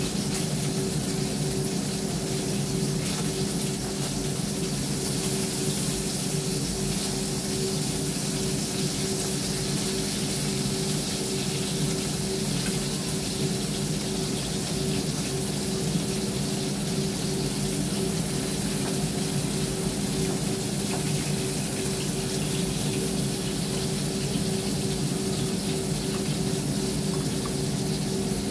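Kitchen range hood extractor fan running steadily: an even whooshing with a low, constant motor hum.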